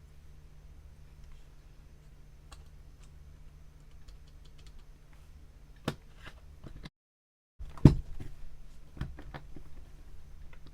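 Clicks and knocks from handling papercraft tools and pieces on a tabletop, over a low steady hum. A sharp click comes about six seconds in, and the loudest knock comes about eight seconds in, followed by a few lighter clicks.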